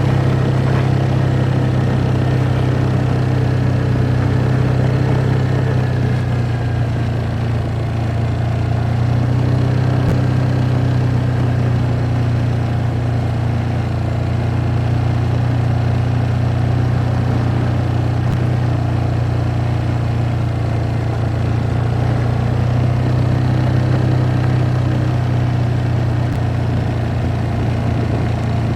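ATV engine running steadily, with only slight shifts in pitch.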